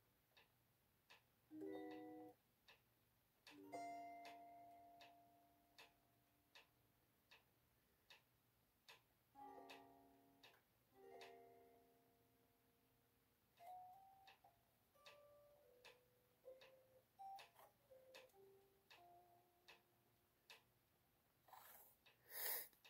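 Squier Stratocaster electric guitar played quietly, improvising: a few ringing chords, then a run of single melodic notes. A steady soft ticking keeps time underneath, about three ticks every two seconds, and a short louder scrape of the strings comes near the end.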